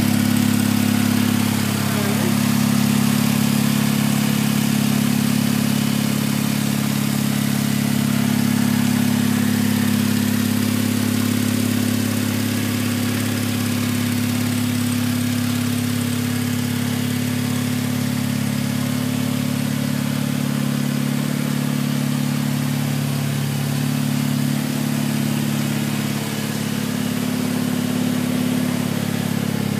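Motorcycle engine idling steadily at an even, unchanging speed.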